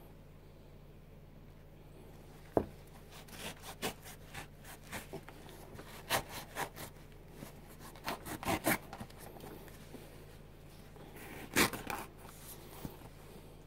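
Hands flexing and rubbing a worn Nike Air Max 90 sneaker close to the microphone. After a sharp click a few seconds in, there is irregular rustling and scraping of the shoe's fabric upper and laces.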